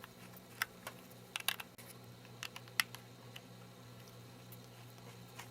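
Light, scattered clicks and ticks of a small precision screwdriver on the tiny bottom screws of an iPhone 3GS, about half a dozen over the first three and a half seconds, over a faint steady hum.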